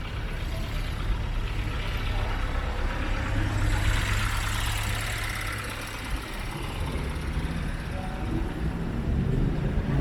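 Street traffic: a motor vehicle's engine running close by, with a swell of passing-vehicle noise about four to six seconds in.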